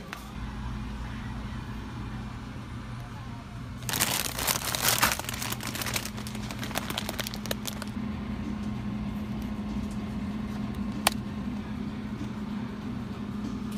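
Grocery-store background with a steady low hum. About four seconds in, plastic packaging crinkles and crackles for roughly three and a half seconds. A single sharp click comes near the end.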